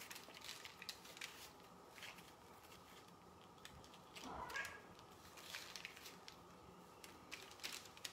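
Faint crinkling and clicking of aluminium foil as floured dumpling dough pieces are picked up off a tray. A single short cat meow sounds about halfway through.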